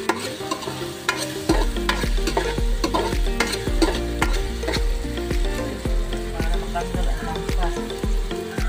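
Chopped ginger sizzling as it fries in oil in an aluminium pot, with a metal spoon stirring and clinking against the pot many times. A low hum comes in under it about a second and a half in.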